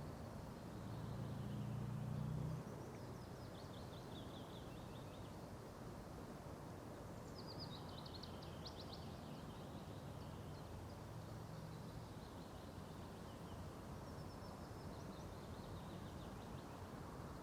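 A songbird singing three short descending trilled phrases, spaced several seconds apart, over steady outdoor background noise. A low steady hum is heard in the first couple of seconds.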